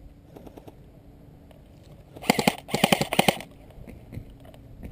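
Airsoft gun firing on full auto: two rapid bursts a little over two seconds in, the second one longer, with a faint short burst shortly after the start.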